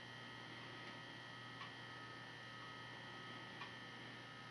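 Near silence with a faint, steady electrical hum, and two soft ticks about two seconds apart.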